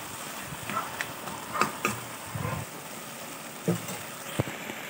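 Crab, onion and tomato frying in oil in a kadai, sizzling steadily, with a spatula scraping and knocking against the pan a few times.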